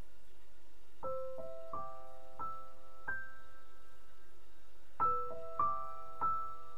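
Slow, sparse background piano music: single held notes struck one at a time, a phrase of five notes starting about a second in, a pause, then a new phrase from about five seconds in.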